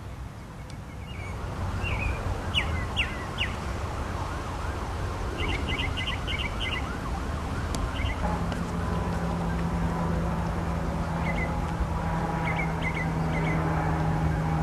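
Outdoor ambience: a steady rushing noise with short high bird chirps, including a quick run of chirps. About halfway in, a steady low hum with fainter tones above it joins.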